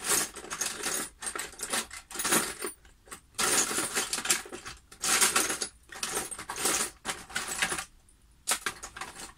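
Rummaging through a cluttered drawer of small metal tools and parts: irregular bursts of metal clattering and jangling against each other, with short pauses between.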